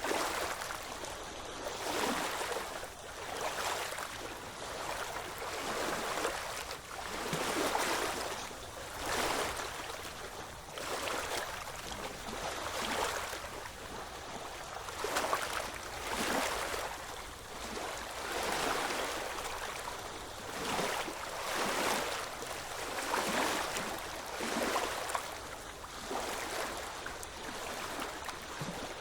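Small waves lapping and splashing, the water noise swelling and falling every second or two.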